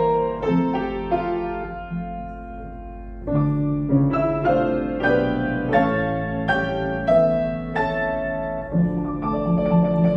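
Piano played four hands, a slow melody over chords; it thins to a quiet held passage about two seconds in and comes back fuller about a second later.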